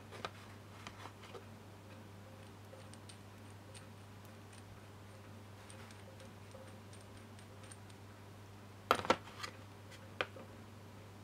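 Metal pieces of an air-conditioning compressor clutch tool kit clicking and knocking as they are handled and set into the slots of a plastic case. There are a few light clicks near the start, a louder cluster of knocks about nine seconds in, and one more click a second later, over a steady low hum.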